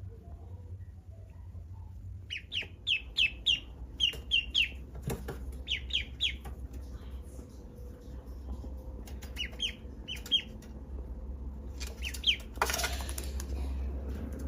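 Duckling peeping in quick runs of short, high, falling notes, in several bursts of three to five. A brief rustle comes near the end, over a steady low hum.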